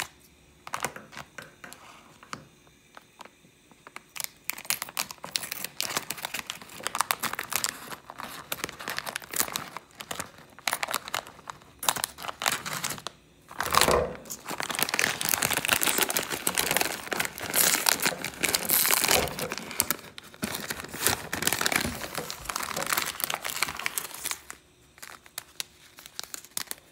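Plastic instant-noodle packet crinkling in irregular bursts as it is handled and opened, with a single sharper knock about fourteen seconds in.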